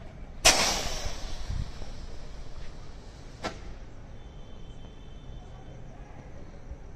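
Sukra Lunik Diwali sky rocket launching: a sudden loud whoosh about half a second in that fades over a couple of seconds as it climbs, then a single sharp crack about three and a half seconds in.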